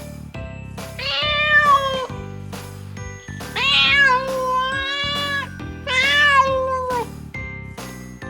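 Domestic cat meowing three times, the middle meow the longest, over background music.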